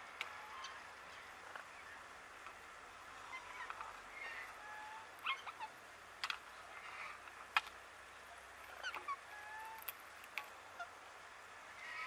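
Soft, scattered chirps and squeaks from an Alexandrine parakeet and an Indian ringneck parakeet, with a few brief whistles and several sharp clicks, the loudest about halfway through.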